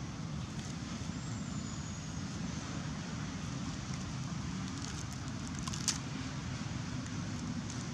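Steady low rumble of distant road traffic, with a brief sharp crackle just before six seconds in.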